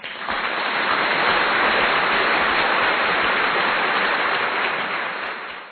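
A steady rushing, hiss-like noise that fades in at the start and fades out near the end.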